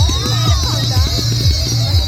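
Electronic dance music with a steady bass beat, about two beats a second, over a high tone that slowly falls in pitch.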